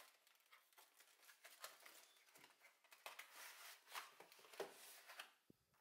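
Faint handling noise of retail packaging: a cardboard box flap and a clear plastic tray rustling and crinkling, with scattered light clicks.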